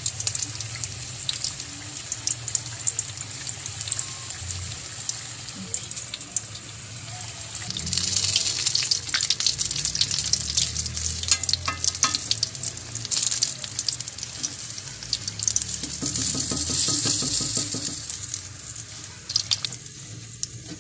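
Chicken empanadas frying in hot oil in a pan: a steady sizzle with crackling pops, louder in two stretches in the middle and dying down near the end.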